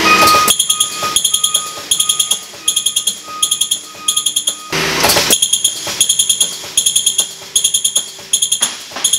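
Mechanical diesel injector nozzle firing on a Hartridge IFT-70 injector test bench during a nozzle opening pressure test. It chatters in quick clusters of sharp, high-pitched ticks that repeat about every half second, with a short hiss about five seconds in.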